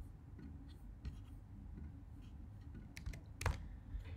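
A few scattered clicks from a computer keyboard and mouse, the loudest about three and a half seconds in, over a faint low hum.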